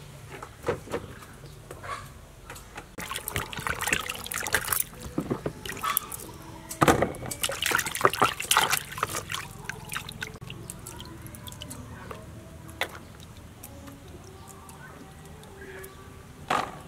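Hands swishing and rubbing red chillies and leaves in a plastic basin of water. The splashing is busiest for several seconds in the middle and thins to scattered drips, with one sharp splash near the end as a handful is lifted out.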